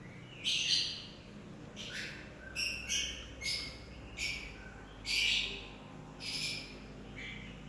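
Birds chirping, a string of short high-pitched calls coming roughly one or two a second.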